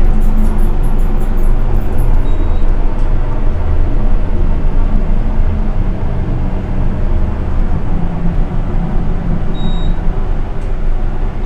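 Elevator cab's ventilation fan running loudly and steadily in a moving hydraulic elevator, drowning out the elevator's own sound. Two short high beeps sound about two seconds in and again near the end.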